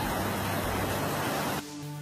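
Loud, steady rushing noise of storm wind and water that cuts off suddenly about one and a half seconds in, replaced by background music with long held notes.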